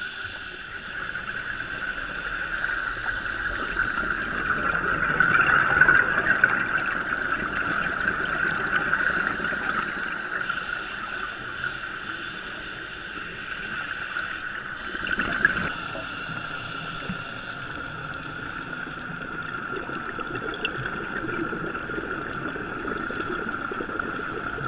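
Underwater sound on a scuba dive, picked up through a camera's waterproof housing: a steady whine under a rushing noise that swells about five seconds in and again briefly around fifteen seconds.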